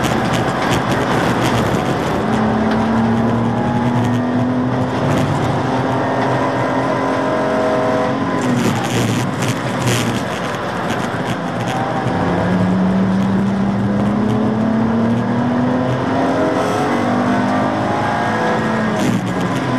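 Cabin sound of a BMW Z4 Coupe (E86) race car's straight-six engine under hard acceleration, rising steadily in pitch, with steady road and wind noise. About nine seconds in the revs drop sharply as the driver lifts and brakes. The engine then pulls up again through a long rise and drops once more near the end.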